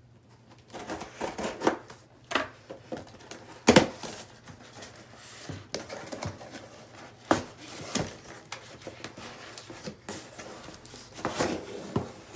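A cardboard box being handled and opened: rustling of the packaging with irregular knocks and taps as it is turned over and set down, the loudest a few seconds in.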